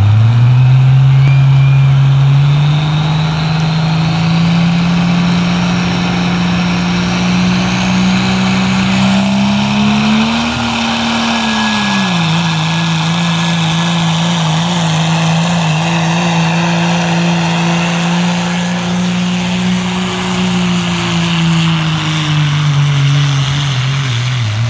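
12-valve Cummins diesel pickup at full throttle pulling a weight sled, with a high turbo whistle above the engine. The engine note climbs over the first ten seconds, dips sharply about twelve seconds in, holds steady, then sags near the end.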